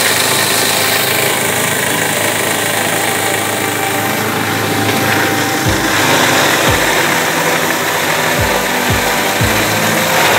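Single-shaft food waste grinder driven by an electric motor, running steadily and shredding vegetable scraps and eggshells as they are pushed into its hopper. Several low thumps come in the second half.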